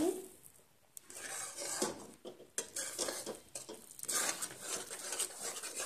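Metal spatula scraping and stirring thick banana halwa around a steel kadhai, mixing in ghee: an irregular run of scrapes and clinks that starts about a second in.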